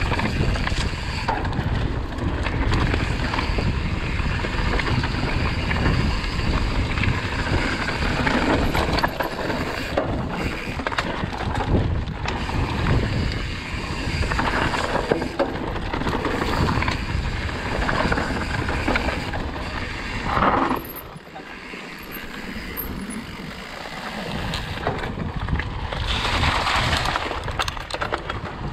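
Wind rushing over the microphone of a moving camera: a steady noise with a heavy low rumble that drops away for a few seconds about two-thirds of the way through, then builds again.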